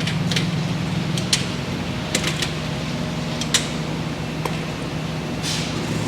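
Tire-change work on a semi truck: a steady low mechanical hum with a few sharp metallic clicks and knocks scattered through, and a short hiss of air near the end.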